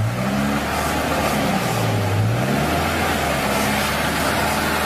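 Off-road engine revving under load, its pitch rising and falling, with a steady hiss of tyres working in the mud, as a UAZ off-roader pulls a stuck SUV on a tow strap.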